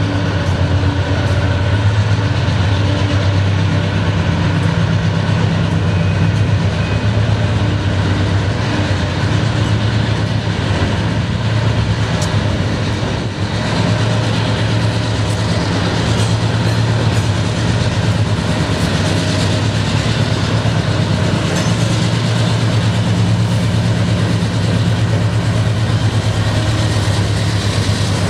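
Freight train passing: the diesel engines of GE C40-9W locomotives running with a steady low drone, over the noise of wheels rolling on the rails. The sound dips briefly about halfway through.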